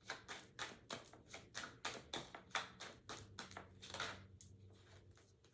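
A tarot deck being shuffled and handled: a run of quick, light card taps and slaps, several a second, that stops about four seconds in.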